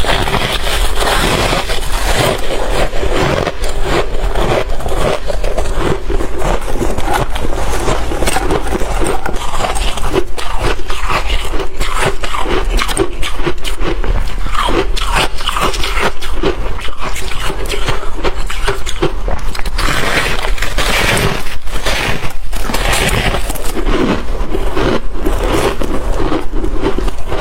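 A person chewing shaved ice and freezer frost: loud, dense, irregular crunching, bite after bite with no pauses.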